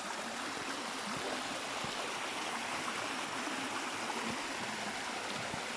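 Steady rush of water from a stream at a waterfall.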